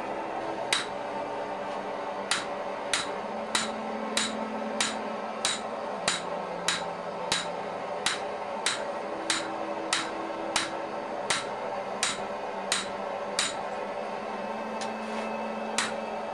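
Hand hammer striking a hot steel sword blade on an anvil to forge in the bevels: steady, evenly paced blows about one every two-thirds of a second, each with a short metallic ring, after a brief pause early on.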